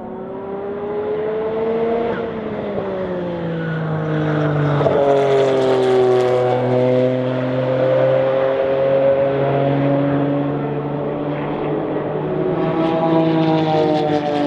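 Porsche 962 Group C race car's turbocharged flat-six engine running at racing speed. It grows louder over the first few seconds, and its pitch rises and falls as it goes.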